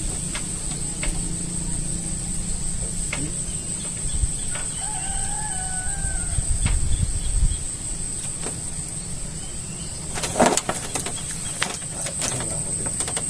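Steady high chirring of crickets over a low rumble, with scattered clicks. A single short bird-like call comes about five seconds in, and a sharper knock about ten seconds in.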